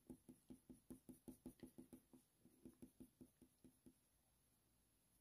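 Coloured pencil shading on smooth hot-press watercolour paper: short back-and-forth strokes give a faint scratch about five times a second, stopping about four seconds in.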